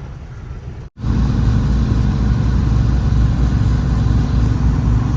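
Semi truck driving on snow chains: a loud low rumble with the chains clinking in an even repeating rhythm on the turning wheels, like sleigh bells. The sound cuts out briefly about a second in, then comes back louder.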